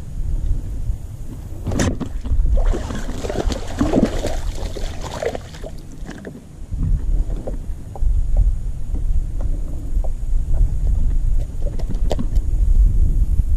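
A hooked bass thrashing and splashing at the water's surface for a few seconds before it is swung out of the water, over a steady low rumble.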